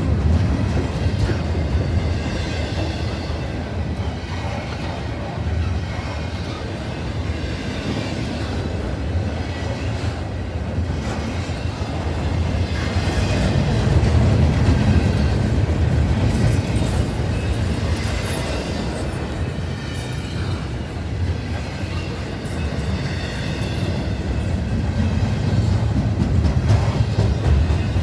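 Double-stack intermodal freight cars rolling past on steel rails: a continuous rumble of wheels on track that swells and eases, louder about halfway through. A wavering high-pitched squeal rides over it at times.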